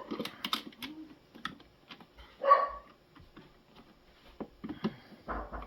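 A dog barks once, loudly, about halfway through, with scattered small clicks and knocks of parts and screws being handled around it.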